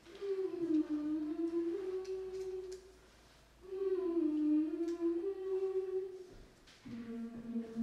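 A female voice humming a slow, wordless tune: two long phrases that dip in pitch and climb back, then a lower held note near the end.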